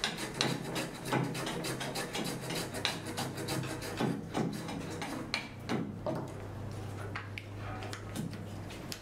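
Small wooden-bodied Japanese hand plane (kanna) shaving a thin wooden kumiko strip held in an angled jig, in quick repeated strokes. After about four seconds the strokes thin out to a few separate passes, and they die away near the end.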